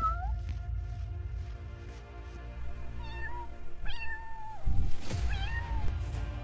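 Kitten meowing: a high meow ending just after the start, then three more in quick succession from about three seconds in, the longest one falling in pitch. A steady low background music track plays underneath.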